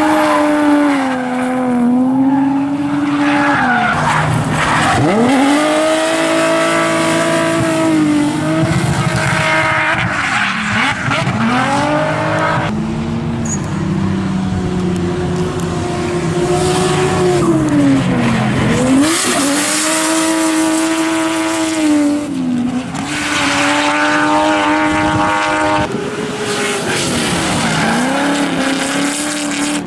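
Drift cars' engines revving hard, the pitch climbing and then dropping sharply every few seconds as the drivers kick the clutch and shift. Tyre squeal and hiss come from the spinning rear wheels sliding sideways.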